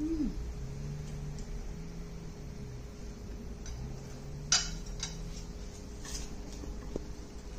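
Chopsticks clicking against a plate as food is picked up, with a few sharp clicks, the loudest about halfway through, and soft low closed-mouth hums from the eater while chewing between them.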